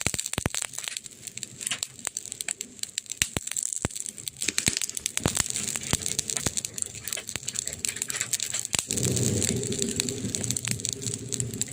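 Wood fire crackling in a fireplace: irregular sharp pops and snaps over a steady hiss. About nine seconds in, a low steady rumble joins.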